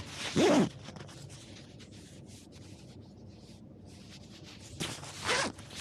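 Scratchy rubbing and scraping noises, with two louder short squeaky sounds, one about half a second in and one near the end.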